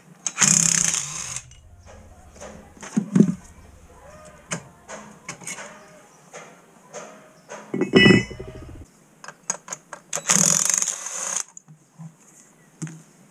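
Hand tools and metal parts being worked at an ATV's rear wheel hub while a bolt-on wheel spacer is taken off: scattered clicks and knocks. There is a loud metallic clank with a short ring about eight seconds in, and two harsh rasping bursts about a second long, one near the start and one near the end.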